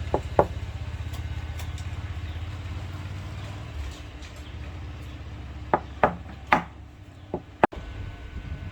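A low, steady motor hum that stops about four seconds in, with sharp knocks on a hard object: two near the start and five more in the second half.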